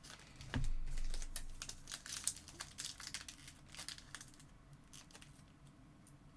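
Foil trading-card pack wrappers crinkling and tearing as packs are ripped open, with light clicks of cards being handled; louder in the first two seconds, then softer.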